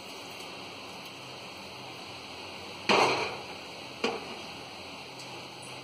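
A plastic mixer-grinder jar knocking once against the rim of an aluminium pressure cooker about halfway through, ringing briefly, then a lighter tap about a second later, while thick blended jackfruit puree is emptied into the cooker.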